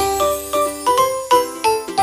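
Background music: a light, bell-like melody of quick, bright notes, several a second, in a tinkling chime or glockenspiel-like sound.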